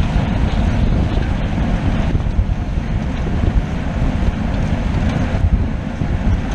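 Wind buffeting the microphone of a camera moving at speed: a loud, steady, rumbling rush with no distinct events, heaviest in the low end.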